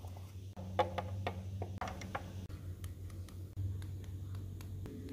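Light clicks and taps of plastic toy figures being handled and set down on a plastic toy-stable floor, a quick cluster in the first two seconds and fainter ones after, over a low steady hum.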